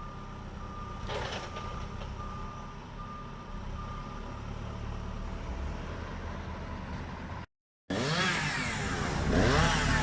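A truck's reversing alarm beeping about once a second over the running engine, stopping about four seconds in. After a brief dropout near the end, a louder stretch of engine noise.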